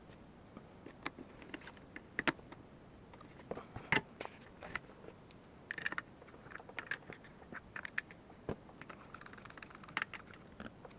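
Irregular small clicks, knocks and brief scrapes of metal and plastic airsoft rifle parts being handled and fitted together, with a couple of sharper clicks about two and four seconds in.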